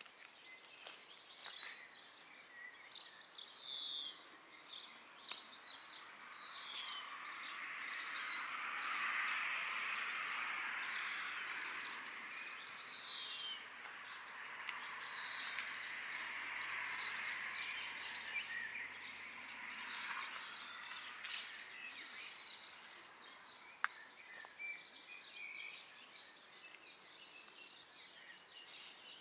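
Songbirds chirping and singing in short calls throughout, over a broad rushing background noise that swells up and fades away again over about fifteen seconds in the middle.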